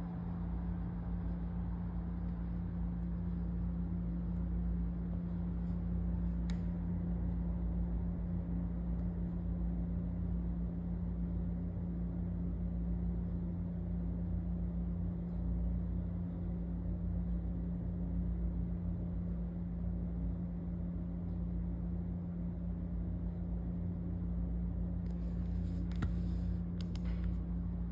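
A steady low electrical hum with rumble beneath it, not switching on and off. A few faint clicks come near the end.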